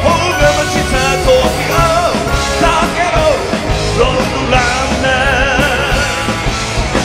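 Rock band playing live, with drums, electric guitars, bass and keyboards, and a lead line over the top that wavers in pitch.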